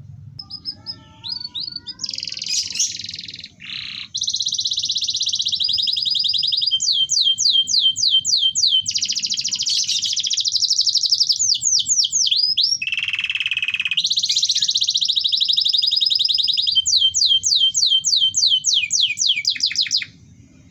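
Domestic canary singing a fast, continuous song of rolling trills and runs of repeated downward-sweeping whistled notes, stopping abruptly near the end.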